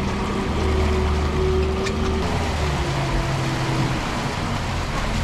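Outboard motor running steadily at trolling speed, over wind and water rushing past the boat. The engine's pitch eases down a little about halfway through.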